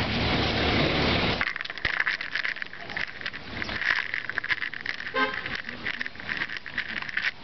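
Busy city street ambience: traffic noise that is full and dense for the first second and a half, then thinner, with a short car horn toot about five seconds in.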